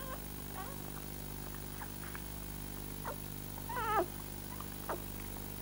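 Newborn puppies mewling while nursing: scattered short, high squeaks and one longer, wavering squeal about four seconds in.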